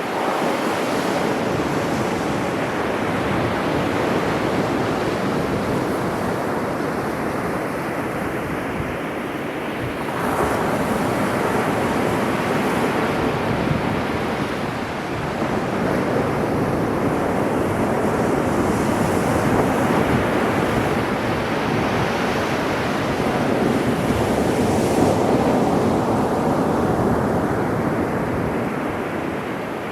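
Sea waves breaking and washing ashore in a continuous surf. It swells about ten seconds in and builds again through the second half.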